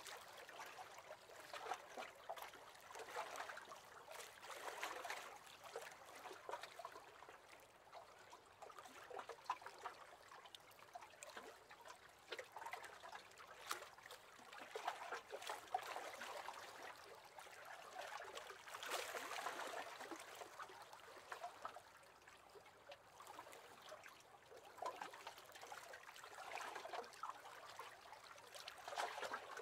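Faint water lapping: small waves splashing against the hull of a wooden rowing boat, coming and going in soft swells.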